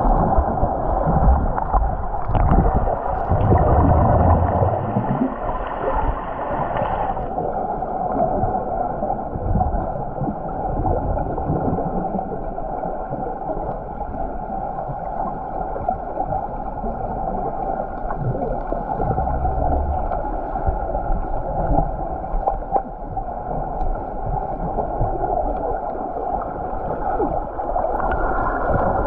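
Underwater pool sound through a submerged camera: a steady muffled hiss and hum, with low rumbles of water being stirred about 2 to 5 seconds in and again around two-thirds of the way through. A higher part of the hiss cuts off suddenly about 7 seconds in.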